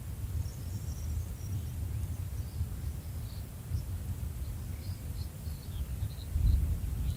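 Outdoor nature soundscape: a steady low rumble that swells near the end, with scattered short high chirps of small birds or insects over it.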